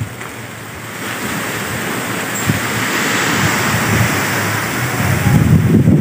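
A strong gust of wind rushing through the trees, swelling from about a second in, with wind buffeting the microphone near the end.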